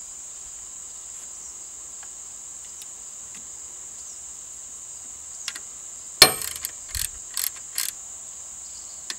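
Ratchet and socket tightening the 13 mm nut that holds a cable on the alternator: a sharp metallic clack about six seconds in, then four short clicking strokes about two or three a second. A steady high-pitched hiss runs underneath.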